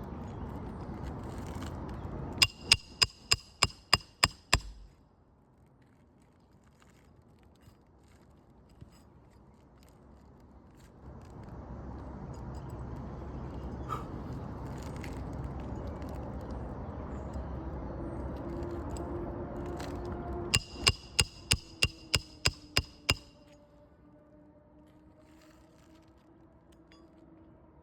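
Roofing hammer striking a metal roof snake to drive shingle nails: two quick runs of about ten ringing metal strikes each, one a few seconds in and another about twenty seconds in.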